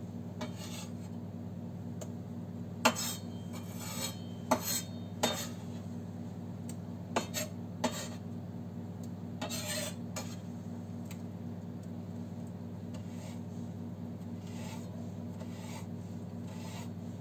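Kitchen knife knocking and scraping on a wooden cutting board as a red pepper is cut: a handful of scattered knocks, then a longer scrape near the middle, and little after that. A steady low hum runs underneath.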